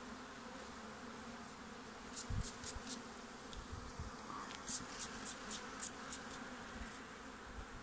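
Honeybees buzzing steadily around an open hive, with a soft bee brush swept in quick strokes across a honey frame, a short run about two seconds in and a longer one about five seconds in, brushing the bees off the comb before the frame is taken for extraction.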